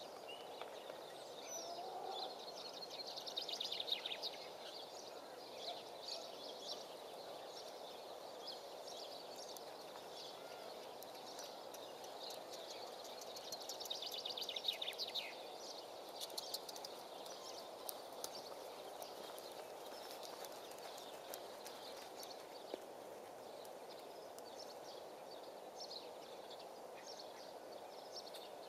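Quiet outdoor ambience: a steady background noise, with two spells of rapid high-pitched bird chirping about ten seconds apart, each a couple of seconds long and ending in a falling sweep.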